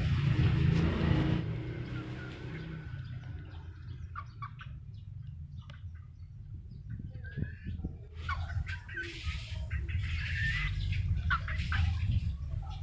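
Chickens clucking, a scatter of short calls that grows busier in the second half, over a steady low rumble.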